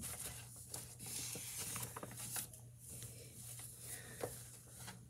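Pages of a large picture book being turned and handled: soft paper rustling with a few light taps.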